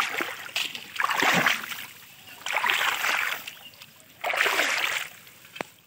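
Splashing in shallow muddy water as bamboo polo fish traps are plunged down and hands work inside them, coming in about four surges roughly a second and a half apart, with a short knock near the end.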